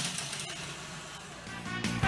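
Whir of small LEGO electric motors as a robot turns on the wooden arena floor, fading, with a swell near the end as music comes in.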